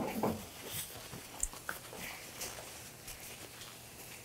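Faint handling sounds: soft rustling with a few light clicks and taps as gloved hands pick up and handle food at the counter.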